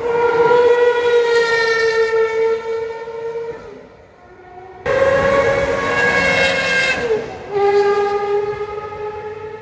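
Gordon Murray T.50's Cosworth 3.9-litre naturally aspirated V12 running at very high revs, a loud high-pitched tone that sinks slightly and fades out a few seconds in. It comes back suddenly about five seconds in, dips briefly at a gear change, then carries on climbing and tails off near the end.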